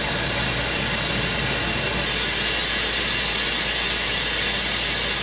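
Fibre laser milling cast aluminium: a steady, high hiss of the pulsed beam ablating the metal, getting louder and brighter about two seconds in.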